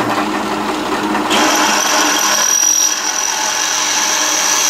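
Drill press running at 2500 RPM with a 1/4-inch twist bit drilling into 3/8-inch aluminium plate. About a second in, a steady high whine joins the running sound as the bit cuts the metal.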